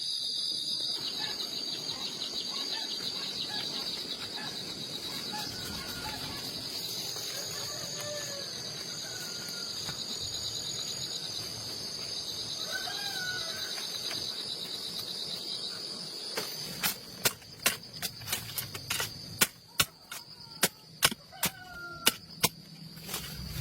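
Insects trilling steadily in a high, finely pulsing chorus, with a few faint bird chirps. About two-thirds of the way in, a run of sharp, irregular clicks or knocks joins in, roughly two a second.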